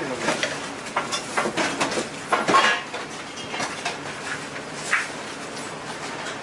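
Metal clinking and clattering as long-handled metal baking molds and a ladle knock against their rack and the batter bowl, in irregular knocks with the busiest cluster about two and a half seconds in.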